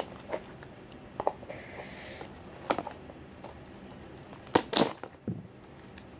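Hands handling plastic toy packaging: scattered sharp clicks and taps with a brief rustle about one and a half seconds in, the loudest clicks a little past four and a half seconds in.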